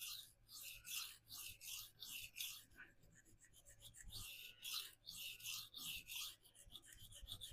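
Steel knife blade stroked across the 400-grit side of a CBN sharpening plate wetted with Windex: a faint, scratchy hiss repeated about two to three strokes a second, with a pause of about a second midway. The strokes are raising a burr on the edge.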